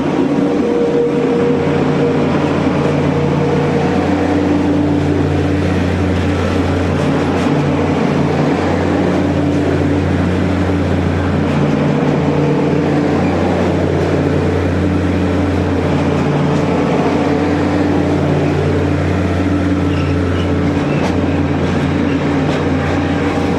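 Network Rail C2103 rail grinding train passing close by, its diesel engines running with a steady, loud drone.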